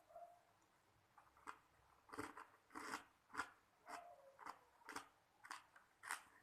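Ice cubes being chewed, a steady run of crisp crunches about two a second after a quiet first second and a half.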